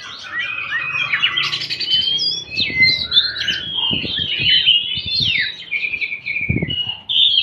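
Oriental magpie-robin (kacer) singing without pause: a fast, varied run of clear whistles, chirps and short trills that keep changing pitch.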